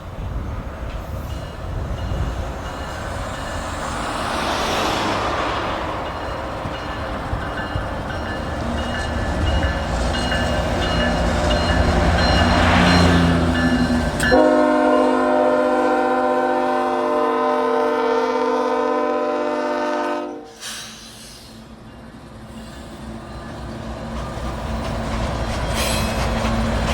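Union Pacific diesel freight train rolling slowly past, with the locomotive's rumble building, then one long horn blast of about six seconds starting about halfway through that cuts off sharply. The rumble of rolling cars follows.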